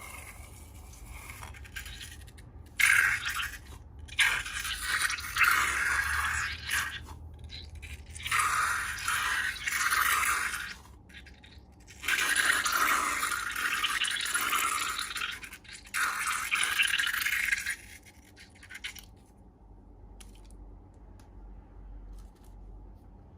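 Slime-making materials being handled and mixed, giving a crackly scraping rustle in several bursts of one to four seconds each, which stops a few seconds before the end.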